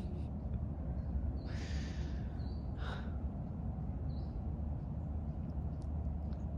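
Forest ambience: a steady low rumble, as of wind on the microphone, with a brief rustle about two seconds in and a few short, faint high chirps, as of small birds.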